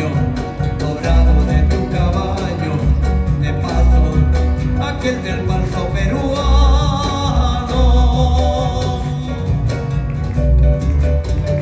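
Live Peruvian music: a band playing with guitar over a pulsing bass beat, with a long held note about six seconds in.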